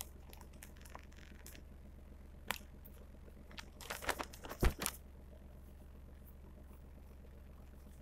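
A plastic zip-top bag of tapioca starch crinkling as it is handled: a few faint clicks, then a short burst of crackling about four seconds in, loudest near five seconds. A steady low hum runs underneath.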